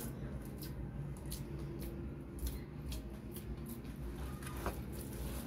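Hands kneading chapati dough in a plastic bowl: irregular soft squishes and small sharp clicks as the dough is pressed and folded against the bowl.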